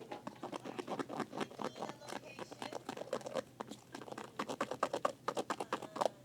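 A thick, wet shampoo and baking-soda slime mixture being mixed, with rapid, irregular sticky clicks and squishes.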